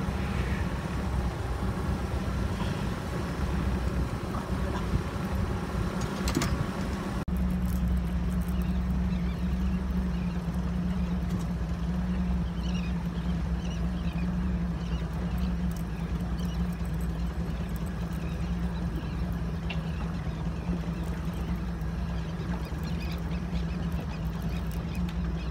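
Boat engine running steadily at slow trolling speed, a constant low hum under wind and water noise.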